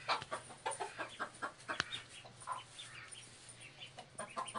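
Mother hen clucking in rapid runs of short notes, an agitated defensive warning as she goes at a goat. The clucks come fast at first, thin out in the middle and pick up again near the end.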